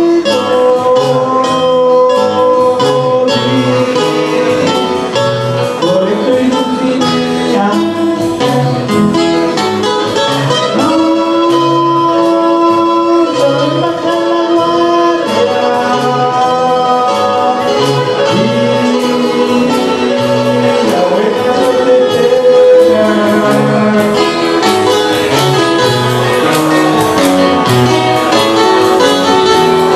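Live acoustic band playing: several acoustic guitars with singing over them, the tune moving through held notes over a steady low beat.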